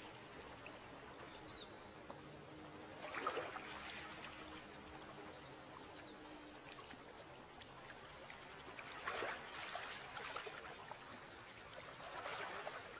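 Gentle waves lapping on a rocky sea shore, faint and steady, with two louder washes about three seconds in and again about nine seconds in. A few faint high bird chirps are heard between them.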